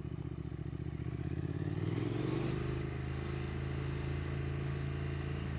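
Triumph Thruxton 1200 R's 1200 cc parallel-twin engine running under way. Its note rises as the bike accelerates about two seconds in, then holds steady.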